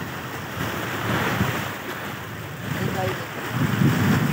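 Sea waves washing and splashing against shoreline rocks, with wind rumbling on the microphone and growing louder near the end.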